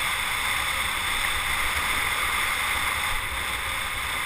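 Wind rushing steadily over the microphone of a camera riding on a bicycle coming down a mountain road at speed, with a low buffeting rumble.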